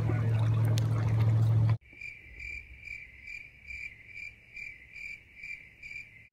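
Outdoor noise with a low steady hum, cut off abruptly about two seconds in by a cricket chirping: even, high-pitched pulses about two and a half a second.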